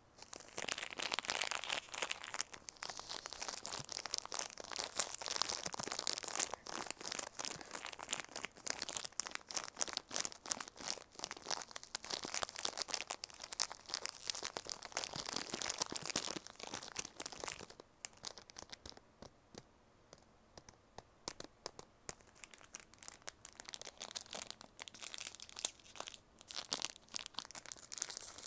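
Crinkly plastic snack wrapper crumpled and rubbed between the fingers, a dense crackling that stops about eighteen seconds in and starts again about three seconds later.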